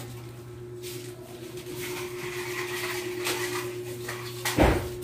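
A single loud knock about four and a half seconds in, over a steady low hum, from work on a metal-framed window.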